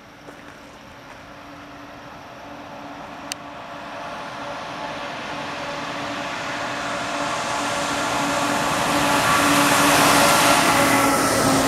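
Fire engines approaching on an emergency run, their engines and tyres on the wet road growing steadily louder as they near.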